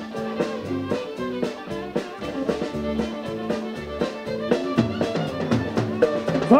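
Live country band in an instrumental break: a fiddle plays a bowed melody over drum kit and bass.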